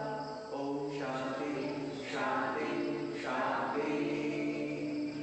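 Voices chanting a mantra together in long held, sung tones over a steady low drone, pausing briefly every second or so.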